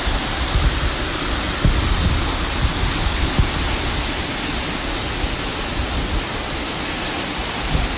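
Waterfall rushing up close: a loud, steady hiss of falling water, with a few brief low bumps on the microphone.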